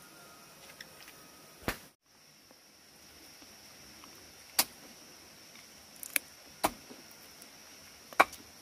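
Five sharp chopping strikes of a blade into wood, unevenly spaced, over a steady high insect drone; the sound drops out briefly about two seconds in.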